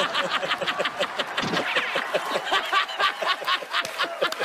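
Men laughing heartily, a fast unbroken run of 'ha-ha-ha' at about five laughs a second.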